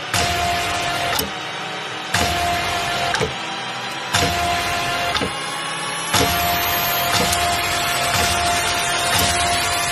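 Film trailer sound design: a sharp hit about once a second, with a steady held tone sounding between every other pair of hits and a rising tone building through the second half.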